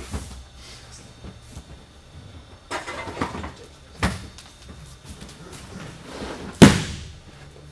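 A judoka being thrown and landing on tatami mats in a breakfall: one loud slap and thud about two-thirds of the way through. Before it come softer rustling of judogi and feet on the mat and a single lighter thud.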